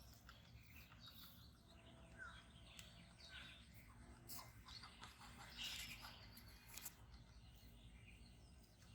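Faint outdoor ambience with scattered bird chirps, and a few sharp clicks in the middle, the loudest a little over halfway through.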